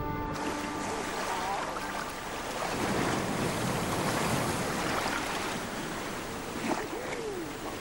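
Sea surf and choppy water washing around a large flock of common eiders, with splashing from the birds. A few short calls sound over it, one a low rising-and-falling moan near the end.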